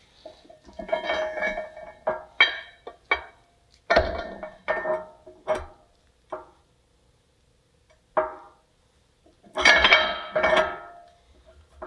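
Heavy steel U-bolts clanking against the leaf spring pack and top plate of a Mack camelback suspension as they are fitted over the springs. It is an irregular run of metallic knocks and clinks that ring on briefly, then a pause, then the loudest clanks near the end.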